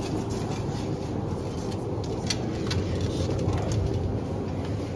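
Supermarket background noise: a steady low hum, with a few light clicks and clatters between about two and four seconds in.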